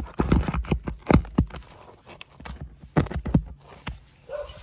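Irregular knocks and taps of a hand tool working under roof shingles to get at a roofing nail, loudest about a second in and thinning out near the end.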